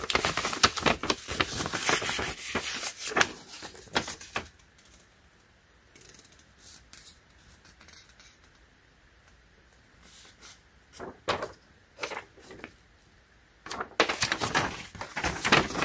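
Folded paper user guide being unfolded and handled, rustling and crinkling for the first four seconds or so, then mostly quiet with a couple of sharp clicks, and rustling again near the end.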